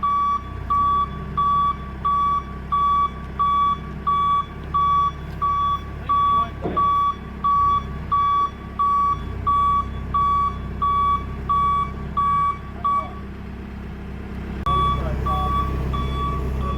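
Forklift backing up: its reversing alarm beeps steadily, a little under two beeps a second, over the low running of its engine. The beeping stops for about two seconds near the end, then starts again as the engine gets louder.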